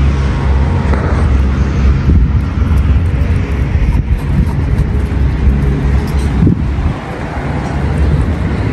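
A motor vehicle's engine running steadily close by, a continuous low hum with a noisy haze over it.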